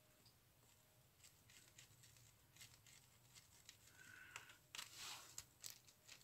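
Near silence with faint taps and scrapes of a fine paintbrush dabbing glue onto paper decorations. A brief louder rustle comes about five seconds in.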